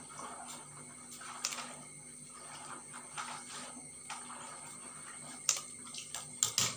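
Scissors snipping through a pappadam, a series of faint, crisp cuts roughly one a second.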